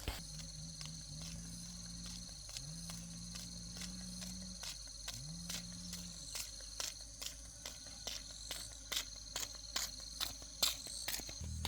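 Crickets trilling steadily, with a series of short knocks or taps that come more often and louder in the second half.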